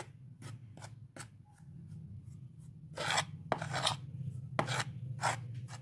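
A metal spoon stirring and scraping dry flour and oil against a metal bowl in irregular strokes, a few louder scrapes in the second half. A steady low hum runs underneath.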